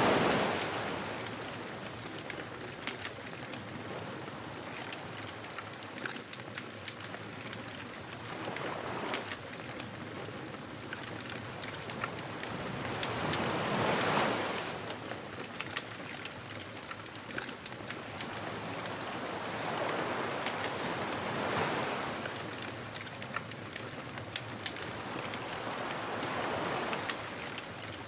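Ocean surf breaking and washing ashore, swelling every five or six seconds, with a wood fire crackling throughout.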